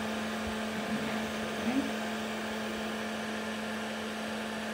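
Thecosky USB mini air-conditioner fan running with a steady hum, its mist spray just switched to setting 2.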